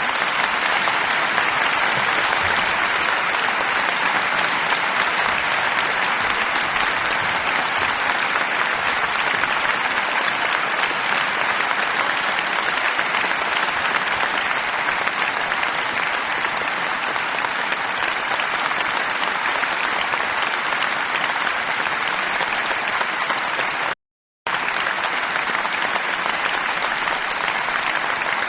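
Applause from a large crowd: dense, steady clapping from many hands. It cuts out completely for about half a second near the end, then carries on as before.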